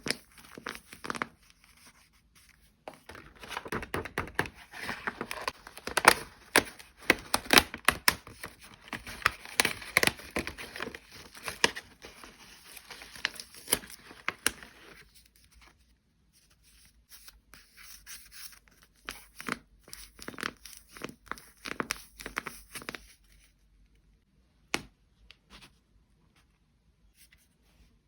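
Packaging being torn open and crinkled by hand, in a dense run of crackling and tearing that thins out to scattered rustles and a few single clicks after about fifteen seconds.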